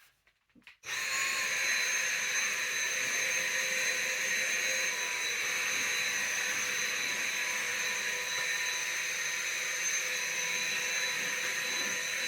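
Dyson V7 cordless stick vacuum with its crevice tool, switched on about a second in. It spins up briefly, then runs steadily with a high whine over the rush of air.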